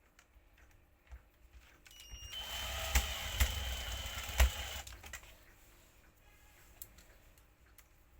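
A small electric motor whirring for about two and a half seconds, with three sharp knocks during it, between light clicks of parts being handled.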